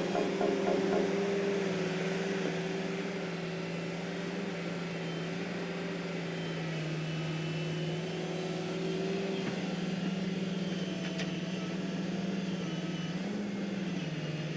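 A toy excavator's small electric motor running with a steady hum, its pitch dipping and rising slightly a few times.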